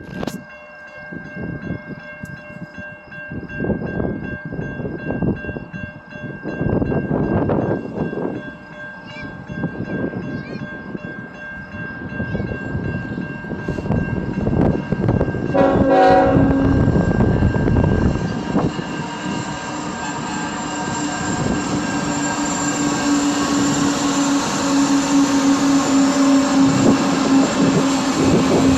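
A train rolling past, its wheels rumbling and clacking over the rail joints. About halfway through a horn sounds briefly, and a steady low tone carries on near the end.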